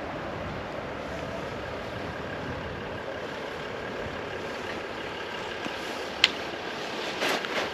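Steady running noise of a moving car, with a single sharp click about six seconds in.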